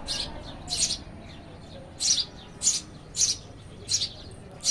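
A small bird chirping over and over, with short, sharp, high-pitched chirps coming about every half second to a second.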